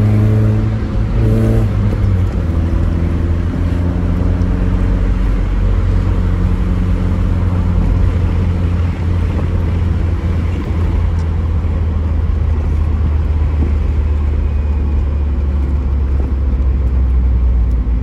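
Tofaş Doğan SLX with an aftermarket Varex exhaust, heard from inside the cabin while driving. Its engine note shifts in pitch briefly in the first couple of seconds, then settles into a steady low drone.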